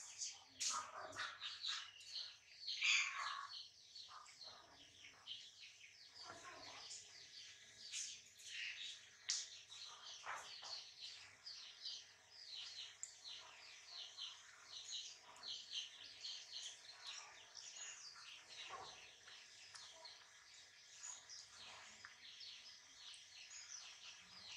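Small birds chirping continuously in the background: many short, high chirps a second, on and off throughout.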